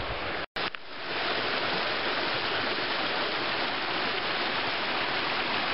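Creek water spilling over stepped limestone ledges in several small cascades: a steady rush of running water. A brief dropout with a click about half a second in, after which the rush fades back up and holds steady.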